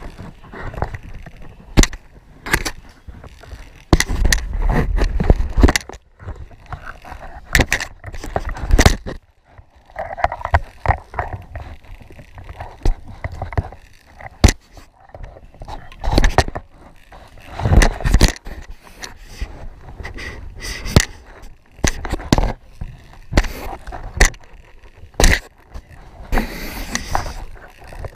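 Zip-line gear handled and hanging from the cable: steel carabiners and pulley clanking, with many sharp knocks and scrapes against the line. There are stretches of rough, low rumbling noise, the loudest about four to six seconds in.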